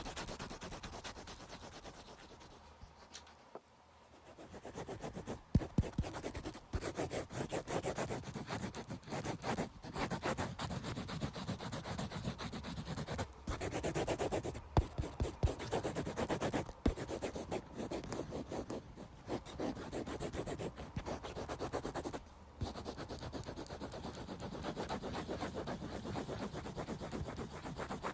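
Pencil sketching on paper in quick, scratchy strokes, with a short lull a few seconds in and a few sharper taps of the pencil.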